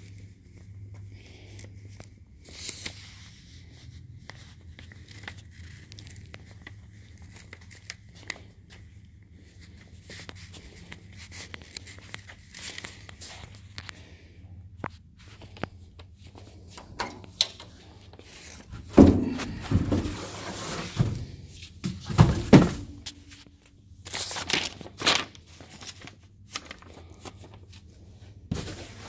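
A Cummings Crosa Cut 156 office paper shredder, with a faint steady hum and a thin high whine that stops about halfway. Then come several loud thunks and rustling scrapes as the shredder cabinet and its cardboard box of shredded paper are handled.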